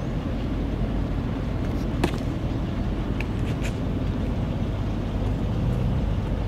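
Steady low engine rumble with a faint hum, and a few faint clicks about two and three and a half seconds in.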